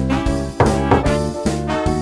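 Upbeat background music with a steady beat, in a jazzy swing style.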